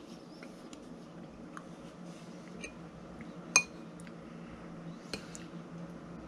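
Metal spoon clinking against a white ceramic bowl while eating from it. One sharp, ringing clink about three and a half seconds in is the loudest, with a couple of lighter taps around it, over a steady low hum.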